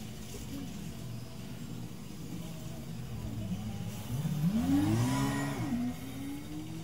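A motor speeding up with a rising whine about four seconds in, holding for a moment, then dropping away, over a low steady hum.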